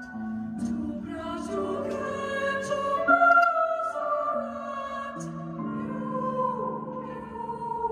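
Slow music with long held notes that change pitch in steps.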